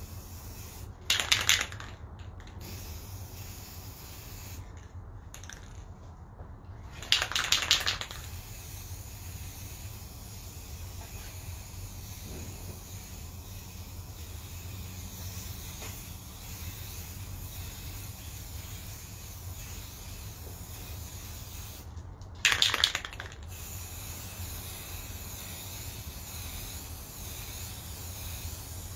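Aerosol spray can being sprayed in three short bursts of hiss, each under a second, coming about a second in, about seven seconds in, and about twenty-two seconds in.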